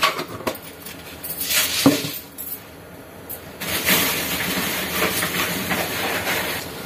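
Chana dal frying in hot oil in a metal kadai: a steady sizzle that swells up about halfway through. A few light clinks and a knock come in the first two seconds.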